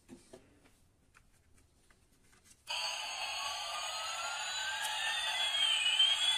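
Battery-powered toy fighter jet's electronic sound effect, switching on suddenly a little under halfway through: a loud, steady jet-engine hiss with one whistle tone rising while another falls. A few faint plastic handling clicks come before it.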